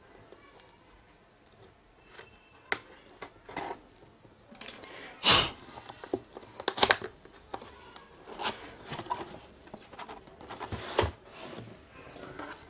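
Cardboard laptop box being opened by hand: a run of irregular scrapes and knocks of cardboard, starting about two seconds in and loudest about five seconds in.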